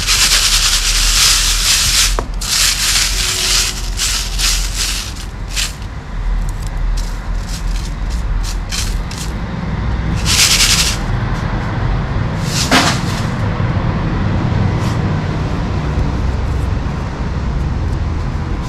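Dry gravel and small stones being sifted and stirred: bursts of hissing grit with many small stones clicking, over a steady low hum.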